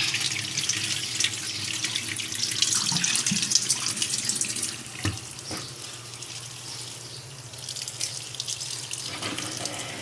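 Thin stream of running water splashing onto a wet concrete floor, then pouring over the leaves and into the soil of a freshly repotted pothos, quieter from about halfway through. A soft knock about five seconds in.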